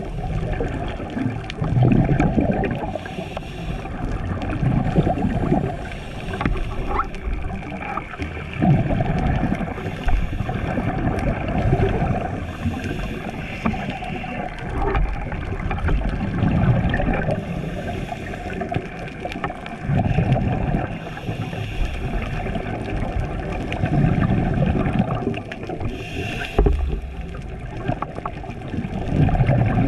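Scuba regulator breathing heard underwater through a camera housing: a hissing inhale, then a gurgling rush of exhaled bubbles, repeating every three to four seconds.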